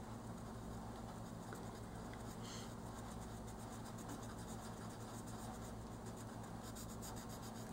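Oil-based colored pencil scratching on a coloring-book page in quick, steady back-and-forth shading strokes. A low steady electrical hum runs underneath.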